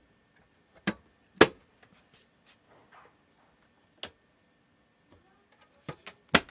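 Modular circuit breakers in DC and AC protection boxes being snapped on one after another: about six sharp clicks, the loudest about a second and a half in, with faint handling noise between them.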